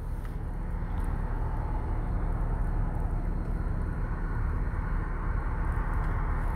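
Steady background noise: a low rumble with an even hiss.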